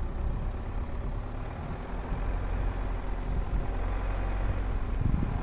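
Off-road vehicle engine running with a steady low rumble, as it drives along.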